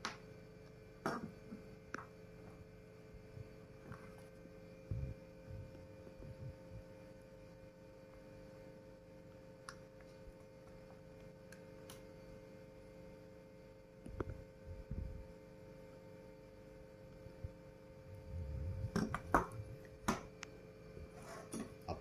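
Steady faint hum throughout, with scattered light clicks and low knocks from a computer power supply circuit board and soldering iron being handled while unused wires are desoldered.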